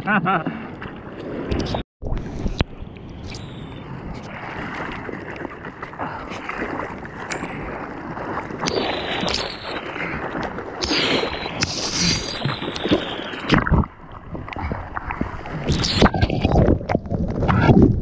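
Water splashing and sloshing against a camera at water level as a bodyboarder paddles out on his board. The sound cuts out briefly about two seconds in, and near the end it grows louder and choppier as the camera goes under the water.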